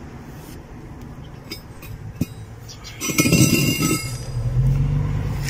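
Light metallic clinks and a brief clatter, followed by a low steady hum that starts near the end.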